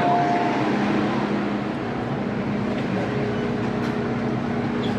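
Interior noise of an MTR M-train (Metro-Cammell electric multiple unit) car: a steady, loud rumble with an electric motor hum, and a higher steady tone joining about three seconds in. A two-tone beeping stops in the first half-second.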